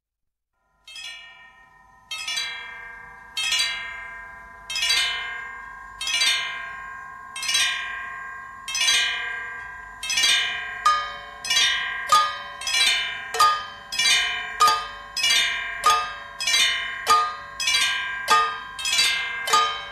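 Instrumental opening of a Bollywood film song: a bell-like metallic note struck over and over, each stroke ringing and fading. It starts about a second in, slowly at first with about one stroke every second and a half, and speeds up to nearly two strokes a second from about halfway through.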